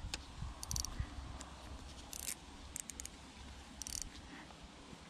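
Spinning reel being cranked in short spurts, each a brief scratchy grind, about one every second with quiet between. The reel is noisy because it was dropped in the water.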